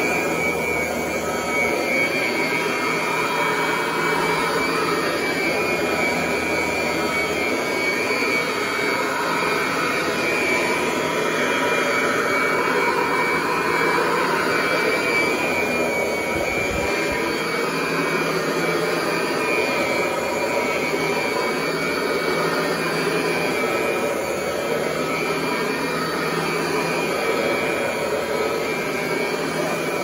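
Kirby 514 upright vacuum cleaner running steadily while being pushed over carpet, its fan motor giving a constant high whine over the rush of air.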